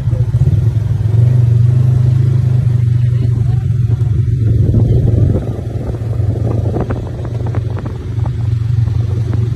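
Polaris RZR side-by-side's engine running steadily at low speed, heard from the open cab. A few short knocks and rattles come through about two-thirds of the way in.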